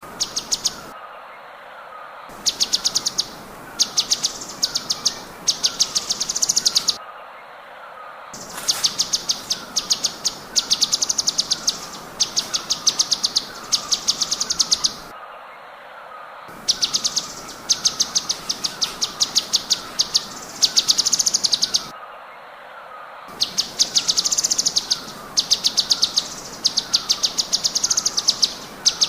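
Cucak cungkok singing in rapid high-pitched bursts: fast trains of sharp repeated notes in phrases of a second or two, with brief pauses between them. A softer, steady, lower chirping repeats underneath.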